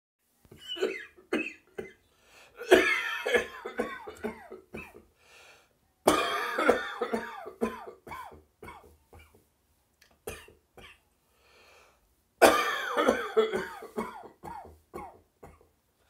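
A person's dry, harsh coughing: a few single coughs, then three long fits of repeated hacking coughs.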